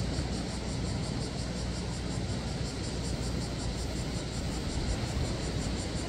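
Steady seaside ambience: a continuous low rumble of wind and surf. Above it runs a fast, regular high pulsing, about four to five beats a second.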